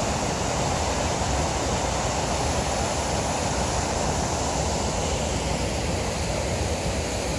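Artificial rock waterfall: a steady, even rush of falling water.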